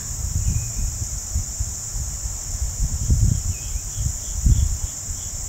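Steady high-pitched chorus of insects, with a low uneven rumble of wind on the microphone.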